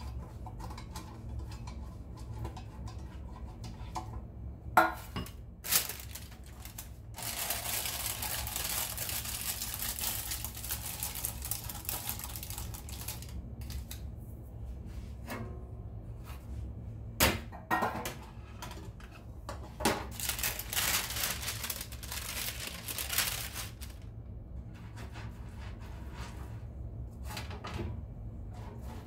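Metal baking pans knocked and set down on a countertop with sharp clacks, and parchment paper rustling in two long stretches as it is pressed into the pans to line them.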